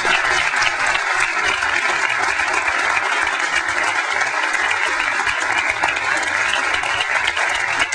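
A large seated audience applauding steadily, many hands clapping at once.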